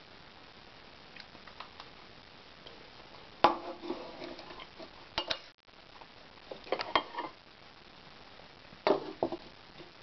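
Cutlery and dishes clinking and clattering on a table during a meal: four short bursts of knocks and clinks, the loudest about three and a half seconds in, with fainter ticks before them.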